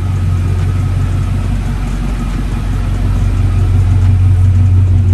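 1996 Chevrolet Impala SS's 5.7 L LT1 V8 idling steadily, growing slightly louder in the second half.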